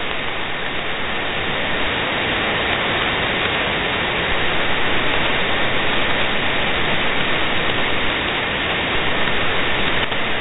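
Steady hiss of shortwave band noise and static from a software-defined receiver on 20-metre single sideband, with no voice standing out of it.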